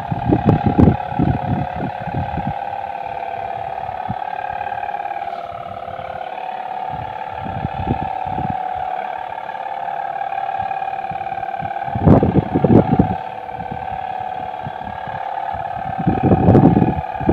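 Sendaren kite hummers droning steadily in the wind with a raspy 'snoring' (ngorok) tone. Low rumbling bursts come in near the start and twice near the end.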